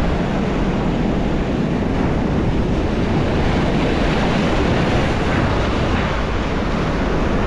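Ocean surf washing against the shore with wind buffeting the microphone: a steady, loud rushing noise.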